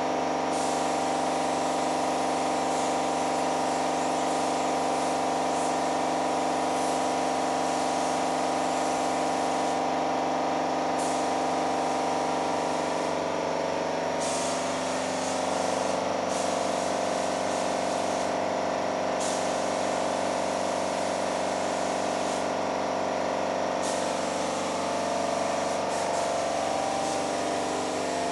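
Paint spray gun hissing as air and paint are sprayed, cutting out briefly several times as the trigger is let off, over the steady hum of an air compressor running.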